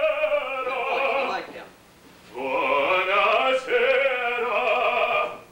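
A man singing in a mock operatic style: two long held phrases with a wavering, vibrato pitch, a short pause of about a second between them, the second phrase lasting about three seconds.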